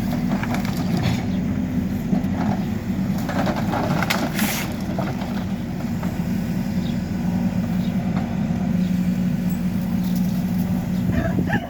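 Diesel engine of a Hidromek backhoe loader running steadily, with a brief noisy clatter about four seconds in.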